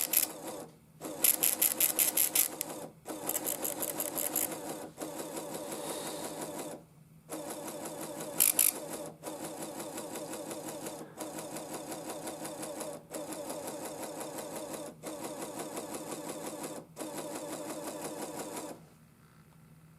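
Built-in printer of a TFT EAS 911 encoder/decoder printing out an alert record. It rattles in quick ticks, line by line, in runs of about two seconds with brief pauses between them, and stops shortly before the end.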